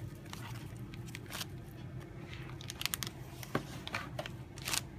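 Packaging being handled: foam packing inserts rubbing as they are pulled out of a cardboard box, then the anti-static bag holding the device crinkling, heard as irregular scratches and small clicks.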